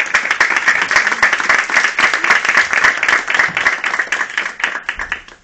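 Audience applauding, a dense run of hand claps that thins out and stops near the end.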